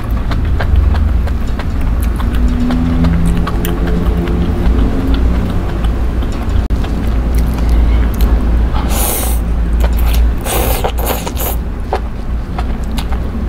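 Close-miked eating of spicy instant noodles and enoki mushrooms: wet chewing clicks throughout, with loud slurps about nine seconds in and again from about ten and a half to eleven and a half seconds. A steady low rumble runs underneath.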